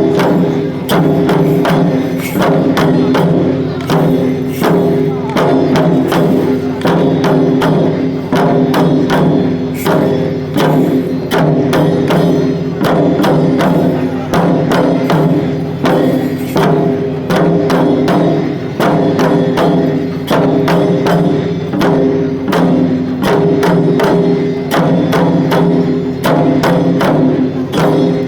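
Sanuki shishimai lion dance music: a drum struck in a fast, continuous rhythm over steady held tones.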